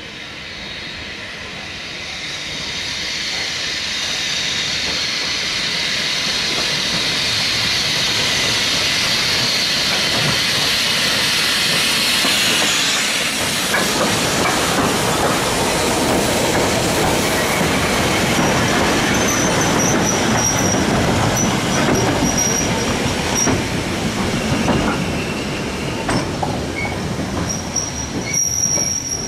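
Small industrial tank steam locomotive and its train passing close by. A hiss of steam grows louder as it approaches. From about halfway through, the wheels clatter over the rail joints as the train goes past, with a thin high wheel squeal coming and going near the end.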